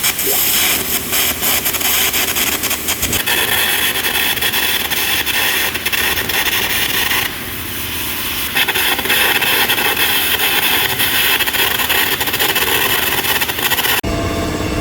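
Power tool working on the steel of a hydraulic breaker being repaired: a loud, harsh hiss with rapid crackling, briefly quieter about seven seconds in. Near the end it cuts suddenly to a lower, steadier machine noise.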